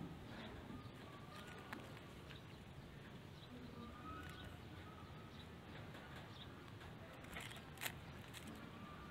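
A cat eating from a styrofoam food box: faint chewing with a few sharp clicks and taps on the box, two of them louder near the end. Faint short bird chirps sound in the background.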